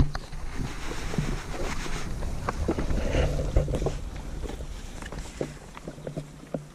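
Red Wattle pigs crowding a wooden feed trough, grunting and chomping at the feed. Short clicks and knocks run throughout.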